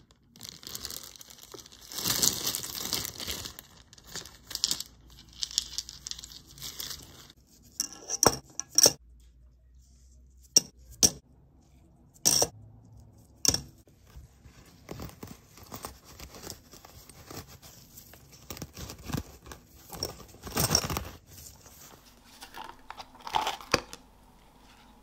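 Cloth anode bag rustling and scraping as it is worked over a metal mesh anode cage. Several sharp clicks and knocks follow as the cage and plastic tubs are handled and set down.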